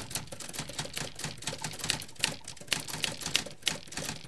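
Typewriter keys clacking in a quick, irregular run, several strikes a second, as a typing sound effect.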